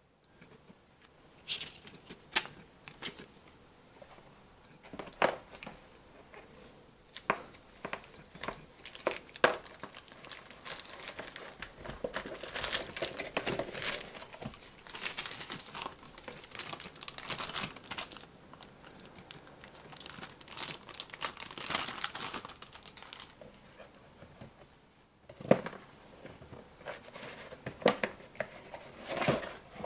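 Clear plastic bag around a camera lens crinkling and rustling as it is handled and unwrapped, with scattered sharp clicks and taps from the cardboard box and packaging.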